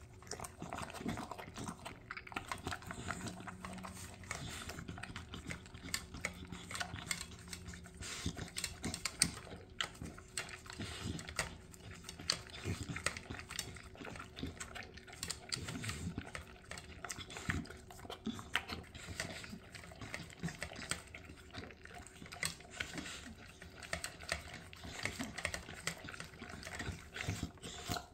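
An American bully dog eating from a stainless steel bowl: steady crunching and chewing of dry kibble mixed with soft cooked liver and rice, a dense run of quick, irregular clicks with no pauses.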